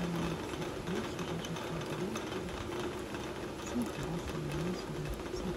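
Steady rain falling on trees and pavement, with a low hum underneath that wavers up and down in pitch.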